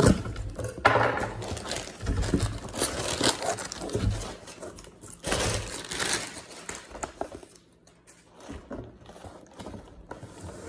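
Cardboard box flaps folded open with a sharp thump, then brown kraft packing paper crumpling and rustling in irregular bursts as it is pulled out of the shipping box.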